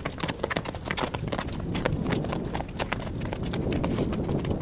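Running footsteps on a track: a quick, irregular patter of sharp footfalls, several a second, over a steady low background.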